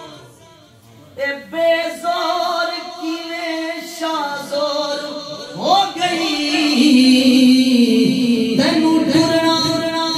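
Unaccompanied naat sung by a man into a microphone, in long, held and ornamented melodic lines. It starts soft about a second in and grows louder about six seconds in.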